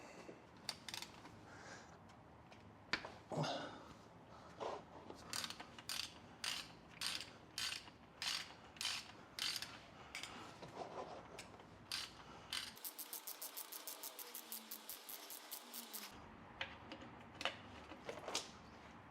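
Faint clicking of a socket ratchet wrench loosening the oil drain plug on a Porsche 997's 3.6 flat-six: spaced single clicks about twice a second, then a fast run of clicks a little past the middle, with a few more near the end.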